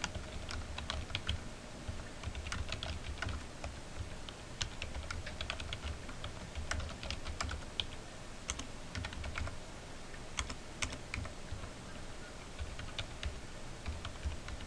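Typing on a computer keyboard: irregular runs of short key clicks as text is entered into a form.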